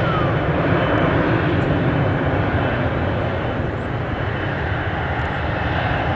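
Airbus A320 airliner's jet engines at take-off thrust as it climbs away, a steady, even rushing noise.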